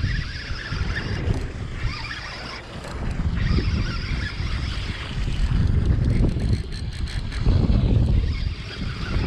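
Wind buffeting the microphone over the rush of sea water along a sportfishing boat at sea, rising and falling in gusts.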